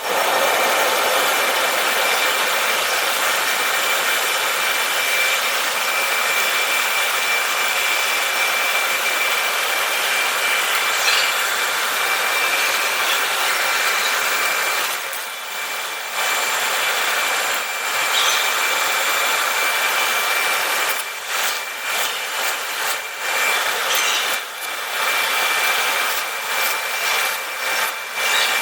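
Power grinder sharpening a steel drill bit: a steady abrasive grinding hiss over a constant high motor whine. From about halfway through it is broken by repeated short dips.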